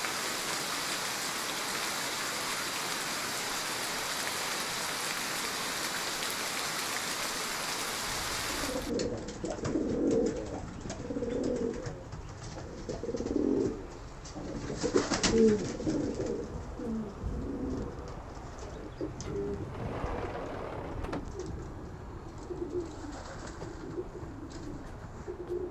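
Steady rain hiss, then after about nine seconds racing pigeons cooing over and over in low, pulsing calls, with an occasional faint knock.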